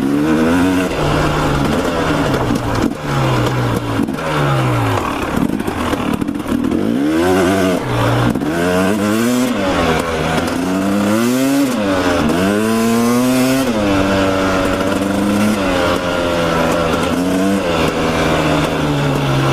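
Dirt bike engine revving up and down over and over, its pitch rising and falling every second or two as the throttle is worked through shifts, over a steady rush of wind and road noise.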